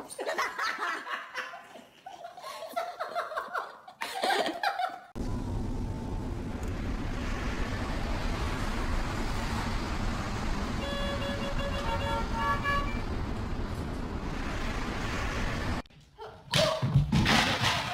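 A few seconds of voices, then steady street traffic noise in which a vehicle horn sounds several short honks about midway.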